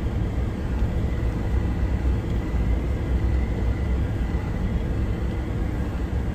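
Steady low rumble of a vehicle driving on a gravel road, heard from inside the cab: tyre and road noise over the engine.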